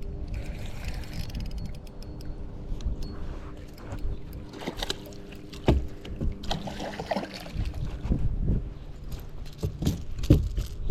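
Small fishing boat on the water: a steady low rumble of wind and water with a faint hum under it, and scattered clicks and knocks of tackle being handled, thickest a few seconds in and again near the end.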